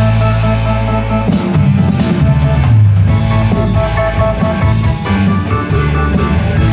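Rock band playing an instrumental passage with electric guitar, bass and drum kit: a held chord, then the band picks back up with steady drumming about a second in.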